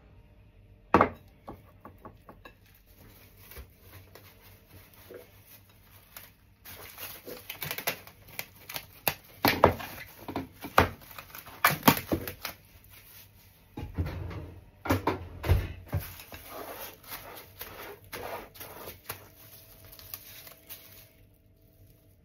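Plastic cling film crinkling and rustling in quick crackles as it is pulled, torn and stretched tight over a ceramic bowl, with a sharp click about a second in.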